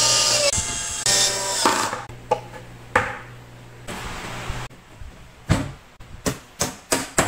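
Cordless drill driving screws into a cabinet's leg mount in two short whirring bursts. Then a knock as a thin backboard is laid on the cabinet, and from about two-thirds of the way in a run of hammer taps nailing the backboard on.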